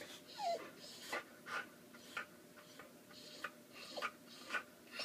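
Dogs panting in quick breaths, roughly two a second, with a short falling whine about half a second in.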